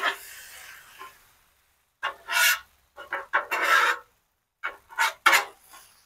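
Metal spatula scraping across a Blackstone griddle's steel cooktop as fried rice is mixed, in several short groups of strokes with silent gaps between them.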